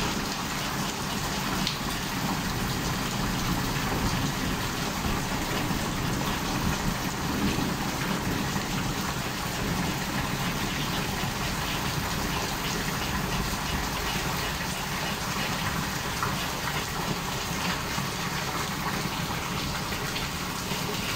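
Heavy rain from a thunderstorm falling steadily, an even, constant hiss with no thunderclap standing out.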